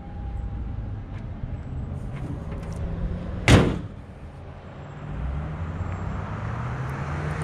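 The steel hood of a 1968 Chevrolet Impala being shut: one sharp bang about halfway through. Under it runs a low, steady rumble of vehicle traffic.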